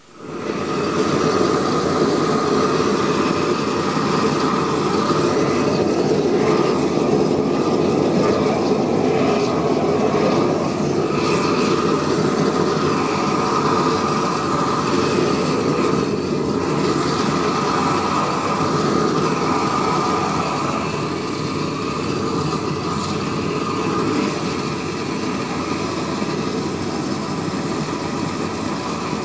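Propane weed-burner torch running at full flame, a loud, steady rushing sound of burning gas that comes in suddenly at the start and holds throughout.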